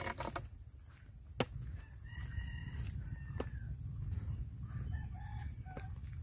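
A faint rooster crowing about two seconds in, with a second, shorter call near the end. Occasional footstep clicks sound over a steady high drone.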